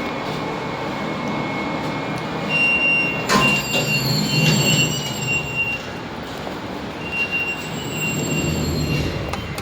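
Passenger lift running: a steady machine hum inside the car, a sharp clunk about three seconds in, then thin high whines coming and going as the car stops and the doors slide.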